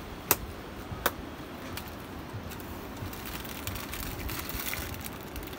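Two sharp clicks less than a second apart near the start, over a steady low background hiss.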